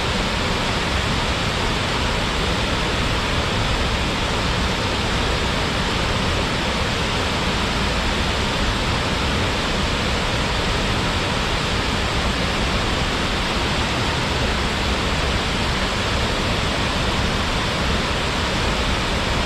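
Waterfall: water falling and splashing in a steady, full rush.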